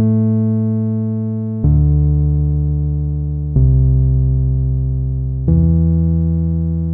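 Instrumental music: slow electronic keyboard chords, a new sustained chord struck about every two seconds and fading slowly until the next.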